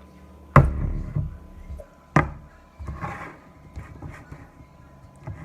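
Two sharp knocks about a second and a half apart, then softer crunching and small clicks, as chunks of cornstarch are handled and chewed.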